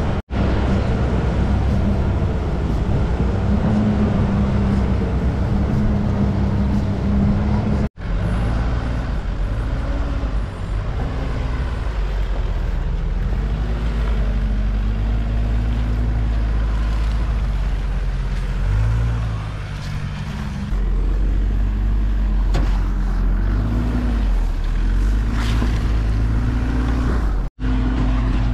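Vehicle engine and drivetrain running under load on a rough off-road track, the engine note rising and falling, over a steady rumble of tyres and wind. The sound breaks off suddenly for a moment twice.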